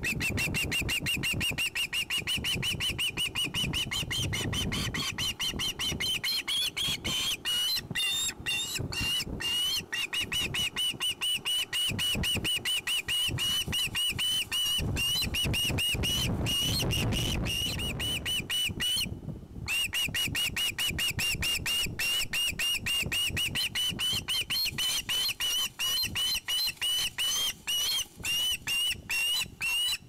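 Juvenile osprey squealing: a rapid, unbroken string of short, high whistled calls, several a second, with one brief break about two-thirds of the way through. Food-begging calls of a fledgling at the nest.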